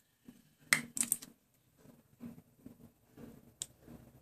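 Light clicks and taps of small objects being handled, a quick cluster of them about a second in and one more near the end.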